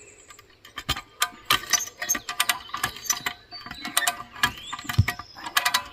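Hand ratchet cable puller (come-along) being cranked under load: the pawl clicks sharply and irregularly over the sprocket as the lever is worked, tightening the cable on a tree stump.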